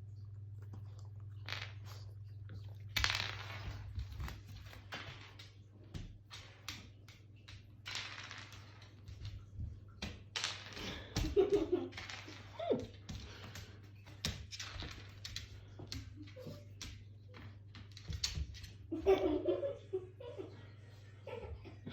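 Chow Chow puppy gnawing on a hard yak chew: irregular clicks, scrapes and crunches of teeth on the chew. A few short voice-like sounds come in around the middle and near the end, over a steady low hum.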